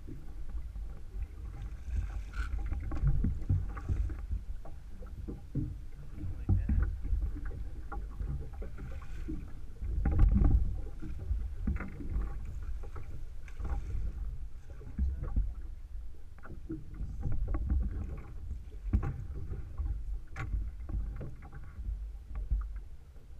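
Choppy water slapping against the side of a small fishing skiff, with a low rumble and scattered knocks throughout, and a louder surge about ten seconds in.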